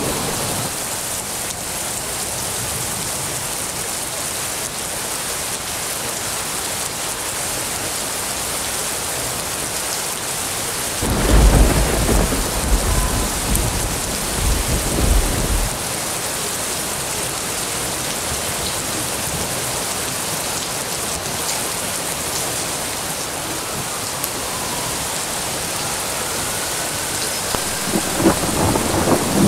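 Heavy monsoon-season rain falling steadily. A loud thunder rumble comes in about eleven seconds in and lasts several seconds, and another rumble begins near the end.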